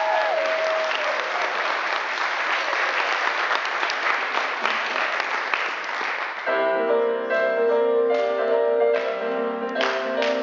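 Audience applauding as the last held sung note fades out. About six seconds in, piano music starts playing, with a few scattered claps continuing over it.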